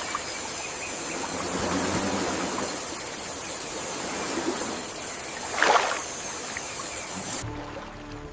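Steady rushing of river water, with one louder splash about two-thirds of the way through. The water sound cuts off near the end.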